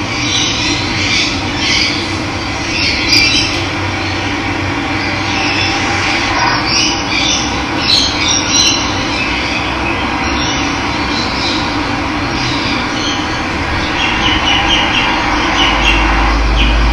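Steady rush of running water, with birds chirping over it many times.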